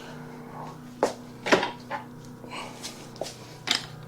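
A few sharp clicks and knocks of small parts being handled while wiring up the ignition cable on a mini bike, the loudest about one and a half seconds in, over a steady faint hum.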